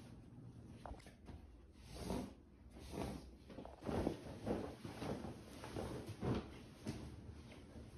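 Bed sheet rustling and swishing as it is shaken out and spread over a mattress: a series of soft whooshes about once a second.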